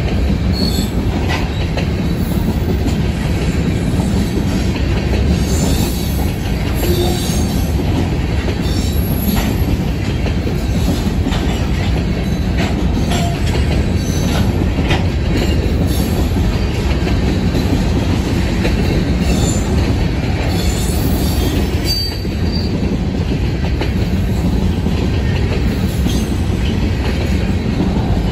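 Empty covered hopper cars of a freight train rolling steadily past: a continuous rumble of steel wheels on rail, with clicks over rail joints and a few brief high wheel squeals.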